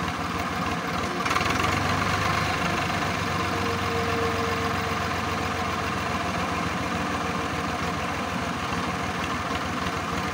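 Tractor diesel engine idling steadily, getting a little louder about a second in.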